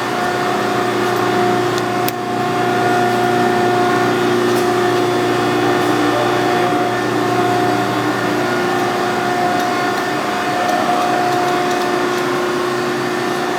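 Hydraulic power unit of a 175-ton Clearing Niagara press brake running, its 30 hp motor and pump giving a steady hum and whine, with a single click about two seconds in.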